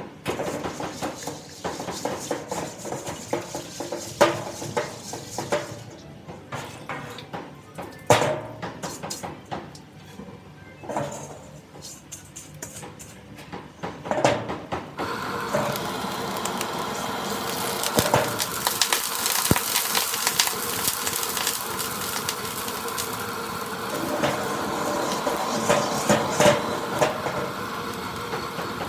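Metal spatula knocking and scraping in a wok, then a steady loud sizzle from about halfway in as food hits the hot wok for stir-frying.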